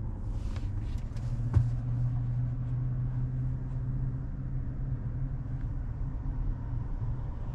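Steady road and tyre rumble with a low hum inside the cabin of a moving Tesla Model 3, an electric car with no engine noise. A single light knock comes about one and a half seconds in.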